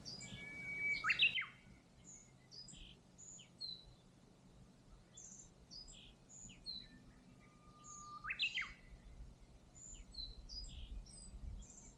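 Wild birds singing: a string of short high chirps and whistles, with two louder calls, each a held whistle ending in a quick rising sweep, about a second in and again around eight and a half seconds.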